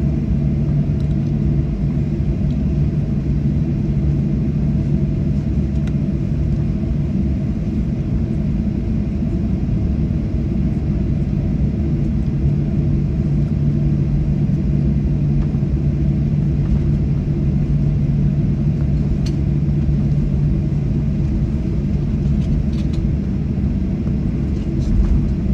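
Steady low rumble and hum inside the cabin of a Boeing 737-800 on the ground, its CFM56 engines at idle thrust with no spool-up. A few faint clicks can be heard in the second half.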